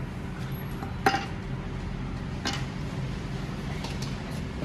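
Metal clinks and knocks as a vacuum brake booster and its pushrod are handled: a sharp click about a second in, another about two and a half seconds in, and a few faint ones near the end, over a steady low hum.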